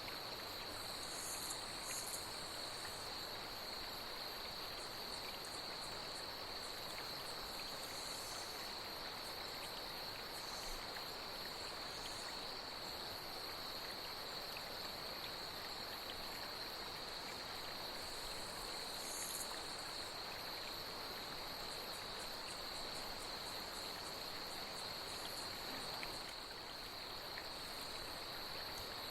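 Nature soundscape of night insects chirring in one steady high-pitched trill over the even rush of flowing water. A few brief, higher-pitched chirps break in now and then.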